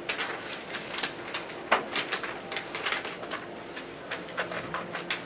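Scattered light clicks and rustling, irregular and several a second, the sharpest about a third and halfway through, over a faint steady hum.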